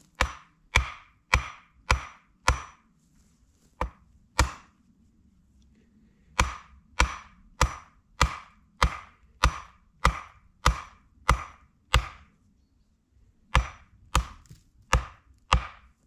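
An axe chopping wood: about twenty sharp, evenly paced strikes, close to two a second, in runs broken by short pauses.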